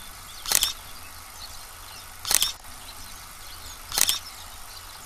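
Three camera shutter clicks, evenly spaced about a second and three quarters apart, over a faint steady background of insects.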